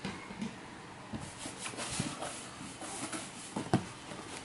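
A cardboard shoebox being wiped with tissue and tipped up on newspaper: scattered rustling and soft knocks, with one sharp knock about three and a half seconds in.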